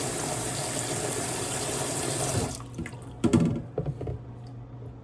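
Water running steadily from a tap for about two and a half seconds, then shut off, followed by a few short clattering knocks.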